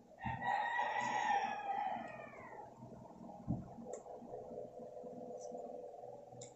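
A rooster crowing once: one long call of about two and a half seconds that falls in pitch at the end. A fainter steady hum follows.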